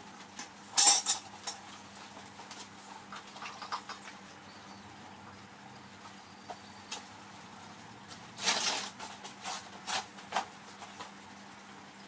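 Steel tongs and lifting tools clanking against a small backyard foundry furnace and its crucible as the crucible of molten aluminium is lifted out for the pour. A loud metallic clatter comes about a second in, then another burst of clanks around eight and a half seconds in, followed by a few lighter clinks.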